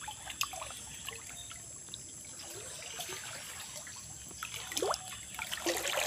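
Water trickling and dribbling, with scattered small drips and splashes, then a louder rushing, splashing noise starting near the end.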